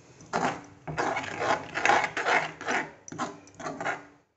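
Metal spoon scraping and stirring thick gravy around a metal kadhai in repeated strokes, about two a second, as milk and cream are mixed into the masala.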